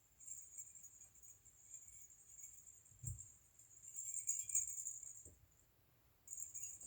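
Small bell on a cat toy jingling steadily as a kitten bats it about. It stops about five seconds in and starts again near the end, with a soft thump about three seconds in.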